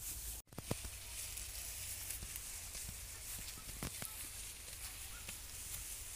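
Steady high-pitched outdoor hiss with scattered light clicks and rustles. The sound cuts out for an instant about half a second in.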